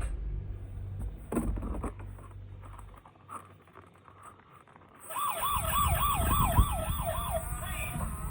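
Electronic siren of a battery-powered toy emergency vehicle, warbling rapidly up and down at about three to four sweeps a second. It starts about five seconds in, after a few clicks and rattles.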